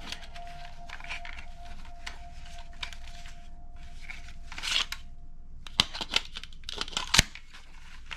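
Handling noises: rustling and tearing of packaging for several seconds, then a run of sharp clicks from about six seconds in.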